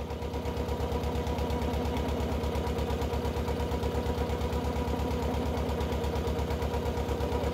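The engine of a wooden boat running steadily under way, a rapid, even chugging that grows a little louder in the first second.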